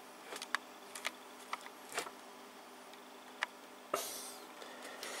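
Light scattered clicks and taps of hands handling an LCD monitor, over a faint steady hum. A rustling, rubbing noise begins about four seconds in.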